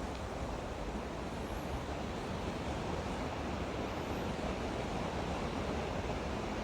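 Steady rushing noise of wind on the microphone, even throughout, with no distinct events.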